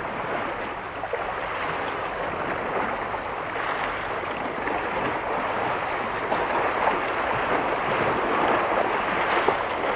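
Small sea waves washing against shoreline rocks: a steady rushing wash that grows slightly louder toward the end.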